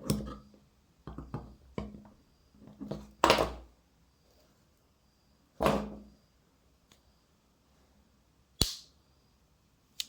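Metal clicks and knocks from a Bosch 12-in-1 folding multitool being handled as its hacksaw blade is pulled out. The clicks are scattered over the first few seconds, with the loudest about three seconds in, another a couple of seconds later and a single sharp snap near the end.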